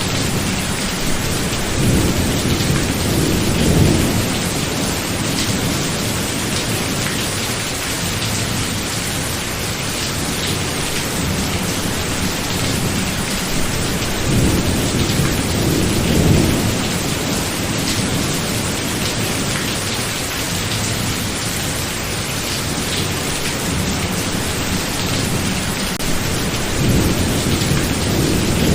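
Steady rain falling through a thunderstorm, with thunder rumbling three times: near the start, about halfway through, and near the end.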